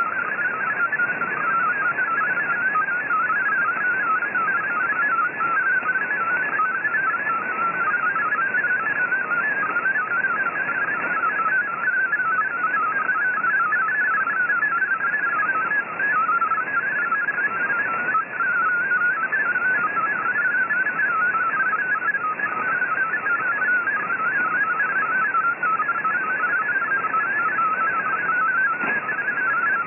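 MFSK32 digital text signal heard through a shortwave receiver: a fast, unbroken stream of short warbling tones hopping within a narrow pitch band, over steady band hiss. It is the sound of a data transmission carrying text, here being decoded as it plays.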